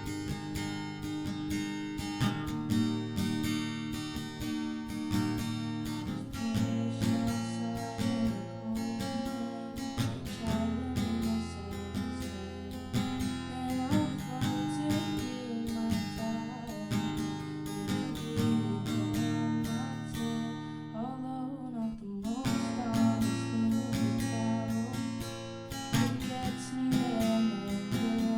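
Music: an acoustic guitar strumming chords, with a brief break about 22 seconds in.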